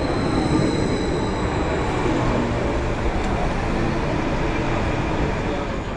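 Electric passenger train pulling in alongside the platform: a steady rumble and rush of the carriages, with a thin high whine that fades out about two seconds in.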